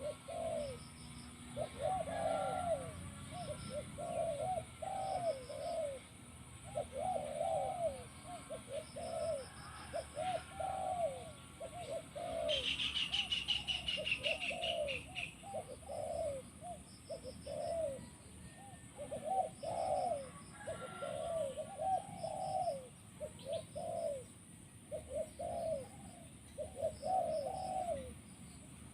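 Spotted doves cooing in repeated phrases, one after another without pause. A short high chirping trill from another bird is heard about twelve seconds in.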